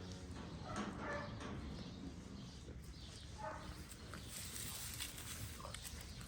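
Faint calls of calves: a short pitched bawl about a second in and a shorter one around three and a half seconds, over a low steady background noise.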